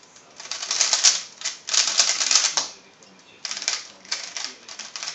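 Moyu Weilong 3x3 speedcube being turned fast: rapid plastic clicking in dense bursts. The turning stops about two and a half seconds in as the solve ends, then starts again after a short pause.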